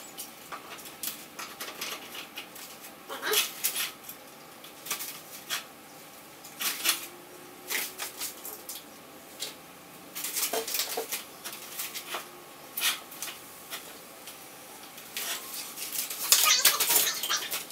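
Cardboard packing being pulled off a fat-tire bicycle frame, with scattered clinks and knocks as the metal frame and fork are handled and lifted, in short irregular bursts.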